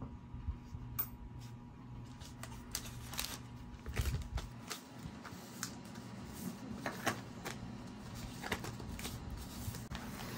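Tabletop handling noises: scattered light clicks and taps with some plastic rustling as a coin holder, plastic zip bags and a magnifier are moved about on a cloth mat, over a low steady hum.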